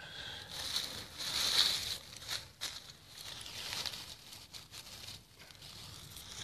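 Dry fallen leaves on the forest floor rustling as a hand brushes them aside, in several short sweeps.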